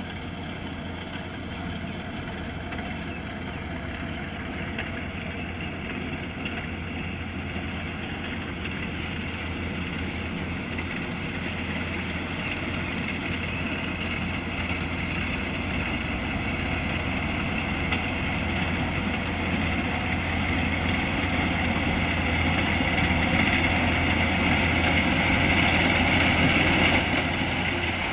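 Kubota DC-105X rice combine harvester's diesel engine and threshing machinery running steadily, growing gradually louder.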